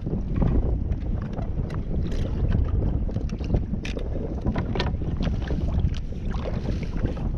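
Wind blowing across the microphone of a fishing kayak on choppy sea, with water slapping against the hull. Scattered sharp clicks and small knocks come from the boat and its gear.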